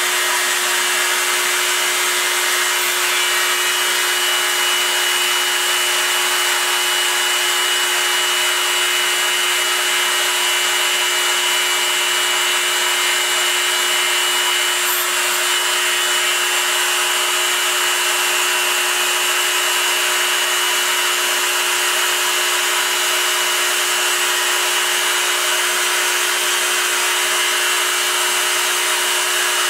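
Proxxon MF 70 mini milling machine, CNC-converted, milling aluminium: the small spindle motor runs with a steady high hum under a continuous hiss of cutting noise while stepper motors feed the table. A thin high whine stops about halfway through.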